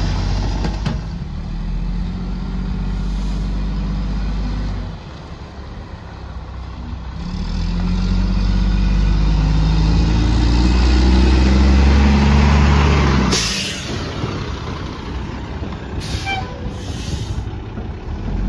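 Mack MR garbage truck's diesel engine running as the truck drives, getting louder as it pulls ahead, then a sharp air-brake hiss as it stops about 13 seconds in, followed by two shorter hisses.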